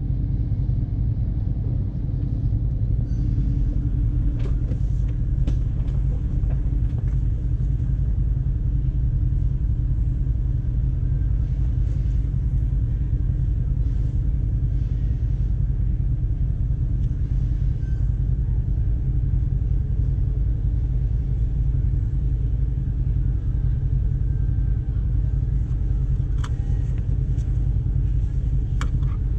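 Jeep engine running steadily, a low rumble with a constant pitch, and a few faint clicks near the end.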